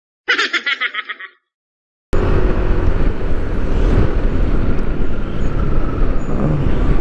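A brief edited-in giggling sound effect, about a second of quick rhythmic laughter that cuts off. After a moment of dead silence comes steady road and engine noise of a vehicle driving along, with a strong low rumble.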